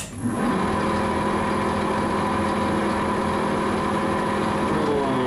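Weiler Matador lathe switched on with a click, its spindle spinning up within a fraction of a second and then running steadily with a low hum and a higher whine. It is running at a slow spindle speed set for drilling a 13 mm hole.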